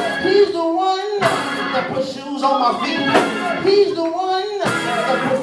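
A preacher's voice through a microphone, chanting the sermon in long, held sung phrases about every second and a half over backing music. Sharp crashes fall between some of the phrases.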